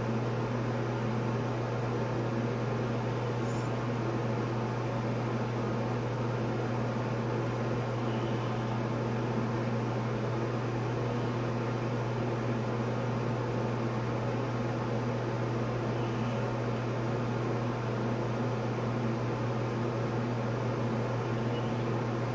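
Bathroom exhaust fan running with a steady, even hum.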